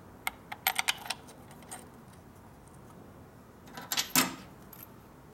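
Light metallic clicks and clinks of small parts and hand tools being handled: a quick run of clicks under a second in, then a louder clatter about four seconds in.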